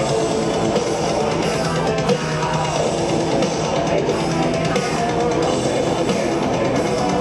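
Live rock band playing a song, with drum kit and guitars going steadily at full volume.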